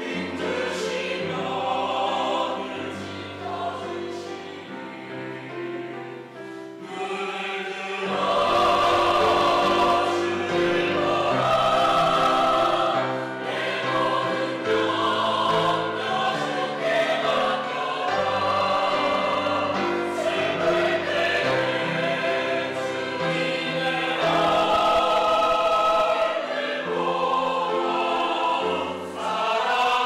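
Mixed church choir of men and women singing a sacred anthem in chords, softer for the first several seconds and swelling fuller and louder about eight seconds in.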